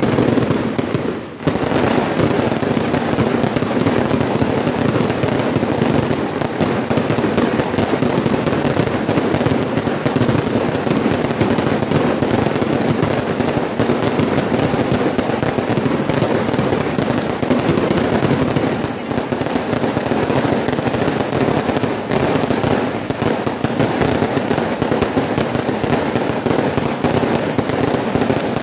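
Aerial fireworks display in a continuous barrage: shells bursting and crackling without a break. High whistles fall in pitch over and over above the bangs, with a brief lull about a second in.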